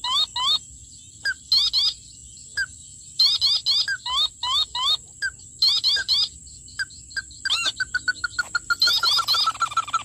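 Ruddy-breasted crake calls played as a bird-trapping lure from a phone speaker: clusters of short, quickly repeated rising notes. A louder sweeping call comes about three-quarters of the way in, followed by a fast, even run of notes to the end.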